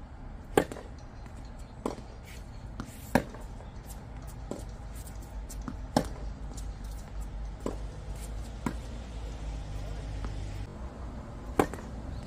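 Tennis rally: the ball is struck with rackets, a serve and then a string of sharp pops of hits traded back and forth, some louder and some fainter, with ball bounces between them, over a steady low rumble.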